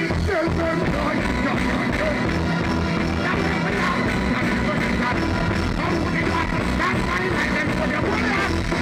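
Live reggae band playing loudly through a concert PA with a steady bass-heavy beat, and a vocalist chanting and singing over it into a microphone.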